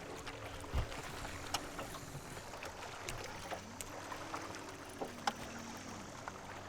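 Water sounds as on a small boat afloat: a steady, faint wash with scattered light clicks and knocks.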